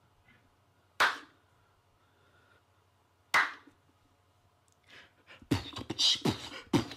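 Two short sharp bursts, then beatboxing: quick rhythmic mouth-percussion hits starting about five and a half seconds in.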